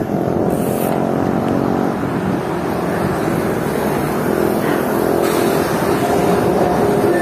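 Road traffic: motor vehicle engines running steadily close by.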